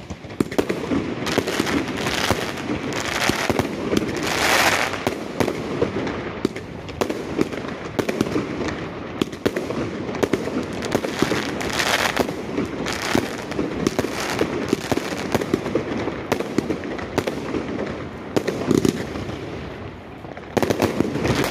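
Aerial fireworks going off in a dense barrage: rapid bangs and crackling with no let-up, heaviest in the first five seconds and again around twelve seconds in.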